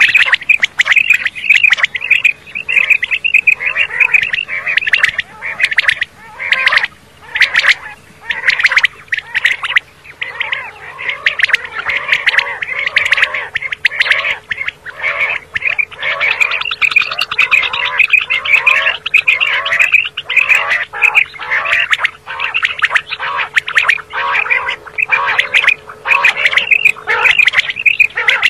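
Common quail calling over and over, many short high calls overlapping in a dense run.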